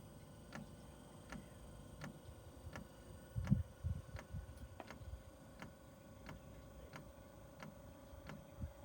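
Chinese 5 kW diesel heater's fuel dosing pump clicking steadily, about one tick every 0.7 seconds, as it meters fuel at start-up. A faint steady hum runs underneath, and there is a dull thump about three and a half seconds in.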